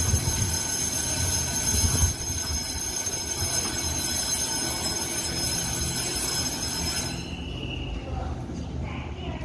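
TRA EMU700 electric multiple-unit commuter train standing at the platform: a steady low rumble with a high-pitched whine over it. The whine cuts off suddenly about seven seconds in.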